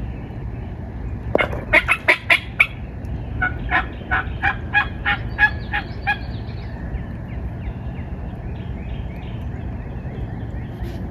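Wild turkey calling close by: a loud burst of five quick notes about a second in, then a run of about nine evenly spaced yelps over the next three seconds.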